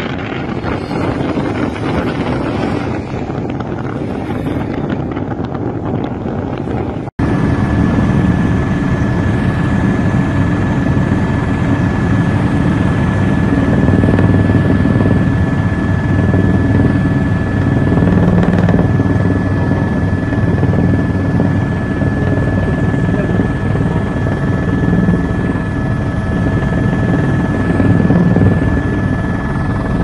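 Helicopter heard from inside its cabin: steady rotor and engine noise with a thin constant whine, starting abruptly about seven seconds in. Before that comes a few seconds of road and vehicle noise with wind on the microphone.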